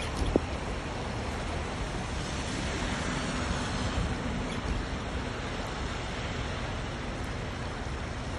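Steady rush of heavy rain, with a short, faint hum about halfway through.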